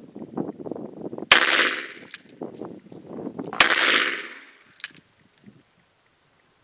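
Smith & Wesson Model 629 revolver firing 240-grain .44 Magnum rounds: two loud shots about two seconds apart, each ringing off and fading over about a second.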